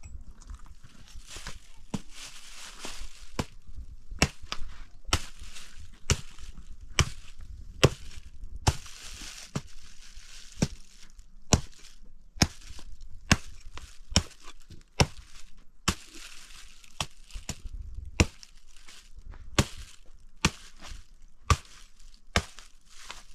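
Repeated chopping with a blade, sharp strikes at an even pace of about one a second, with rustling between the strokes.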